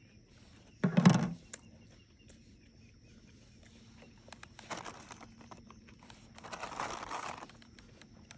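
Paper napkin rustling and crinkling as it is unfolded and handled, in two stretches in the second half. A brief loud noise comes about a second in.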